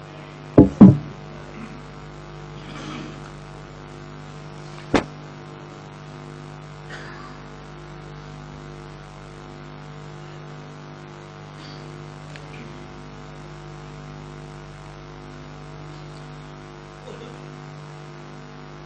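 Steady electrical mains hum from the sound system, with two loud thumps just under a second in and a single sharp knock at about five seconds.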